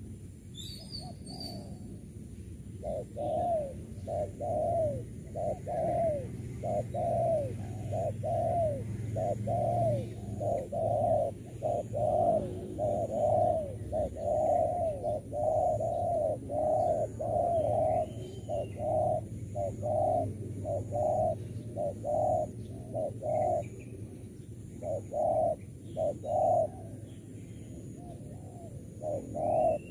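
Spotted doves cooing in a long, fast run of short rising-and-falling coos, about three every two seconds, starting a few seconds in and breaking into shorter bursts with pauses near the end. Faint high chirps from small birds now and then.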